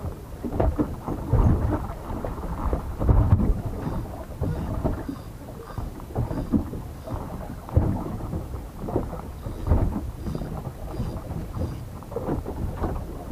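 Wind buffeting the microphone in an irregular, gusty low rumble, with sea water lapping against the hull of a small boat.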